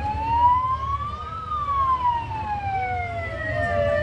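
A wailing siren. Its pitch rises for about a second and a half, falls slowly over the next two and a half seconds, and then starts to rise again near the end.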